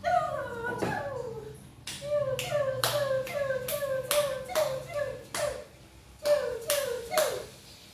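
Puppies yipping: a couple of drawn-out yelps at the start, then a quick run of short yips about three a second, each one dropping in pitch.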